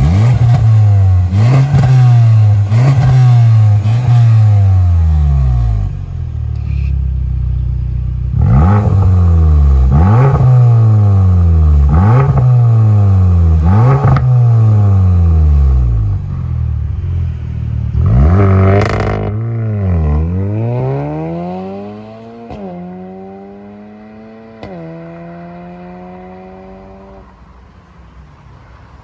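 An Audi A7 45 TFSI's tuned 2.0-litre turbocharged four-cylinder, fitted with a catless downpipe and a valved cat-back exhaust, is blipped hard again and again from idle. Each rev drops away with sharp pops: first a series with the exhaust valves closed, then after a short pause another series with the valves open. Near the end comes a launch-control start: the engine pulls hard with two upshifts and fades as the car drives off.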